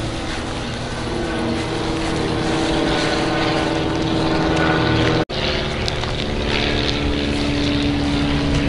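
A machine's steady droning hum, with a sharp break for an instant about five seconds in.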